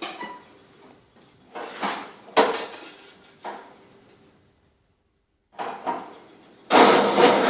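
Scattered knocks and clatters of tools and wood being handled on a workbench, then a loud, steady workshop power tool starts abruptly near the end.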